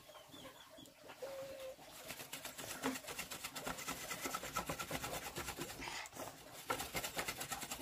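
Wooden stick pounding lumps of charcoal against a wooden plank in rapid, steady taps, crushing it to powder. A short bird call sounds about a second in.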